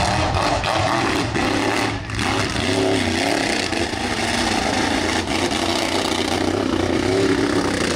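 Mud racing truck engine running hard under throttle, its pitch rising and falling as it revs, with a short drop in level about two seconds in.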